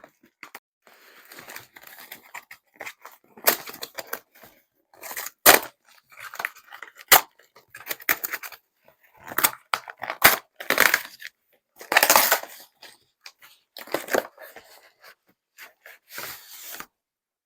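A parcel's packaging being torn and pulled open by hand: a long run of irregular rips, crackles and rustles with several sharp snaps and short pauses between pulls.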